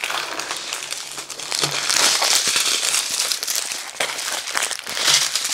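Strips of small plastic zip-lock bags of diamond painting drills crinkling as they are handled and moved, louder about two seconds in and again near the end.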